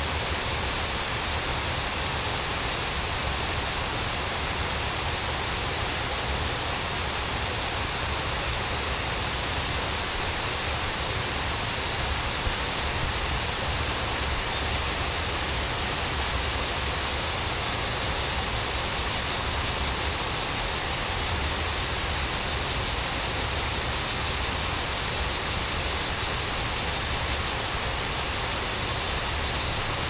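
Steady rush of flowing stream water.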